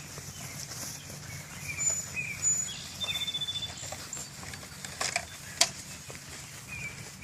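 Wild birds chirping, with high whistled notes and a quick pulsed trill, over a steady low hum. Two sharp clicks come about five seconds in.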